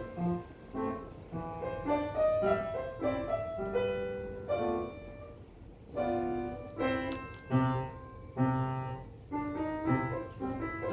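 Solo piano music: a calm melody of separate notes and chords.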